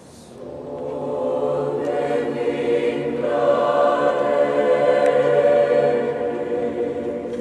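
Mixed youth choir singing sustained chords in a large church. It starts softly and swells over the first few seconds to a full, loud sound, then eases slightly near the end.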